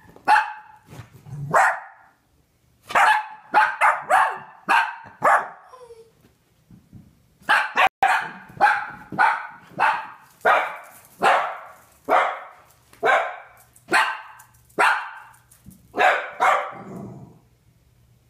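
Dachshunds barking in short, sharp, repeated barks, in bouts with a brief pause about six seconds in, then a steady run of one to two barks a second. It is the agitated alarm barking of dogs upset by fireworks.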